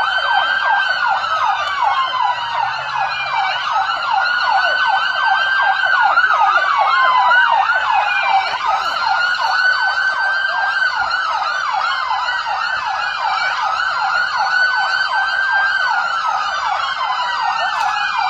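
Two police car sirens sounding together. One runs in a fast yelp of about four sweeps a second. The other is a slow wail rising and falling every few seconds.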